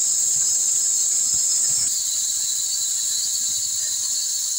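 Insects, such as cicadas, buzzing in a steady high-pitched drone that drops slightly about two seconds in.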